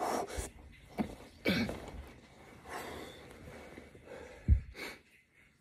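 A man breathing hard after a set of weighted push-ups, with several heavy exhalations and gasps. A low thump comes about four and a half seconds in, the loudest sound.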